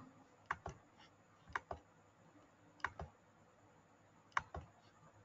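Quiet clicks at a computer: four pairs of short, sharp clicks, the two clicks of each pair a fifth of a second apart, a pair every second or so.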